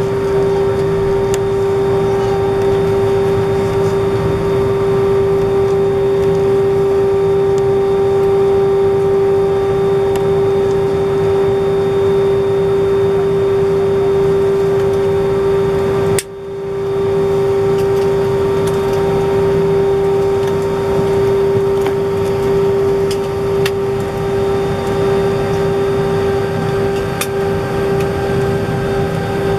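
Jet airliner engines at low taxi power, heard inside the cabin as a steady hum with one constant tone over a low rumble. About halfway through there is a single sharp click, and the sound drops briefly before coming straight back.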